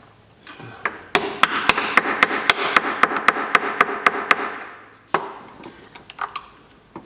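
Hammer blows on a valve cover to break its blue RTV silicone seal: a quick run of about a dozen sharp strikes, roughly four a second, from about a second in to past four seconds, with a single knock and a few lighter taps after.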